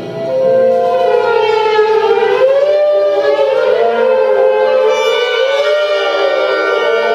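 Contemporary orchestral music: a slow wavering line in the middle register with several other parts gliding up and down in pitch above it.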